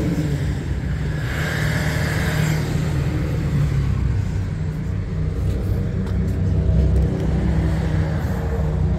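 Steady low rumble of a car on the move, with no speech over it.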